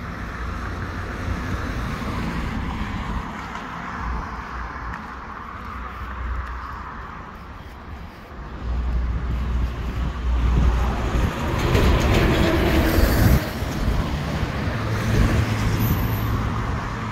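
City street traffic: cars passing on the road, with one vehicle passing close and loud about twelve seconds in.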